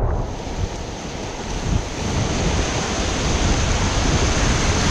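River rapid: whitewater rushing steadily over rocks, with some wind buffeting the microphone.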